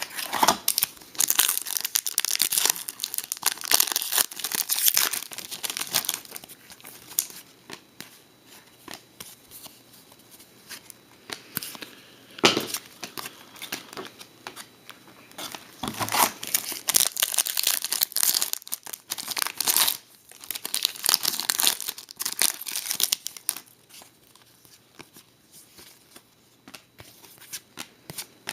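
Trading-card pack wrappers being torn open and crinkled by hand, in two busy stretches of crackling with quieter rustling and a few sharp clicks between.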